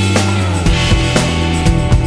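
Background music: rock-style backing track with guitar, bass and a steady drum beat.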